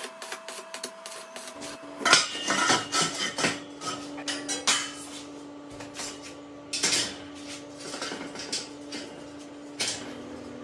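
Metal clanking and knocking, with a cluster of loud strikes about two seconds in and more later, over a steady hum.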